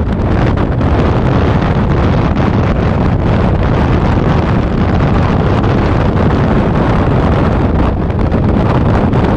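Wind buffeting the microphone of a motorcycle-mounted camera at riding speed, a loud, steady low rush over the bike's road noise.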